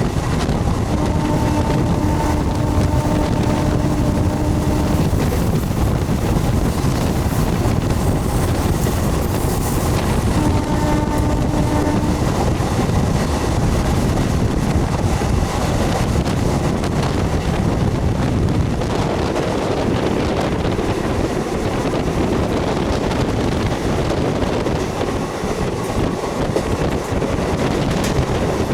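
MEMU electric train running, with a steady rumble of wheels on rail and wind across the microphone. A horn sounds twice: a long blast about a second in and a shorter one about ten seconds in.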